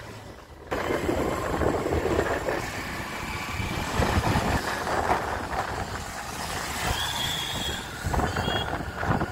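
Road and wind noise of a vehicle moving at speed, with traffic around it. It jumps up suddenly about a second in and then runs as a steady rush, with a couple of short high tones near the end.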